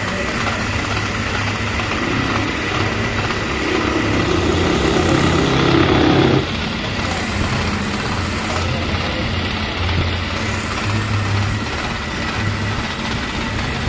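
Metal lathe running: a steady mechanical hum with a thin steady whine. It grows louder for a couple of seconds and drops back sharply about six seconds in.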